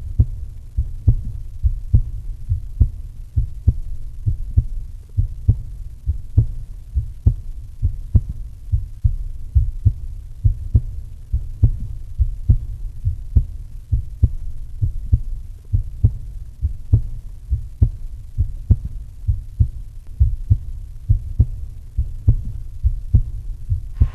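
Heartbeat sound effect: deep, muffled thumps repeating in a steady rhythm.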